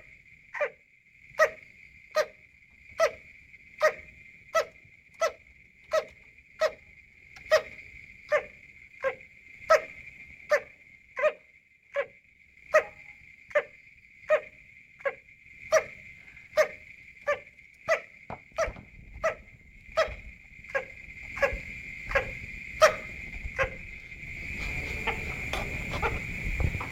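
A bird making short, cough-like calls over and over, evenly spaced at a little more than one a second, over a steady high-pitched tone. About three-quarters of the way through, a rough noise rises underneath.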